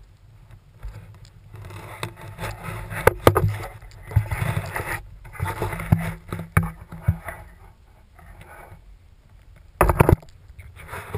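Footsteps crunching through snow, with clothing and hands rubbing and knocking against the handheld GoPro as it swings. A short, sharp knock comes about ten seconds in.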